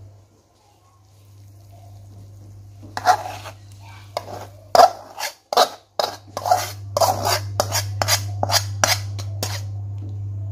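A metal spoon scraping and knocking against a metal pan as thick fried spice paste is scraped out of it into a pot of broth. About three seconds in, a quick run of a dozen or so sharp scrapes and clinks starts and goes on for some six seconds.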